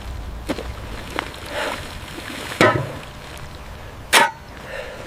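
Steel track tools striking rail hardware: a series of sharp, irregularly spaced clanks. The two loudest come near the middle and about four seconds in.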